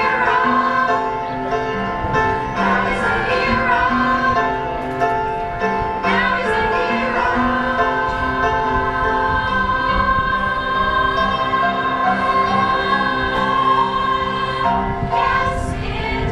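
School choir of mixed young voices singing in harmony, with long held notes.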